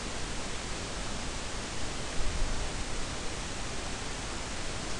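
Steady even hiss with a low rumble underneath and a brief low bump a little after two seconds: the background noise of an open recording microphone, with no speech.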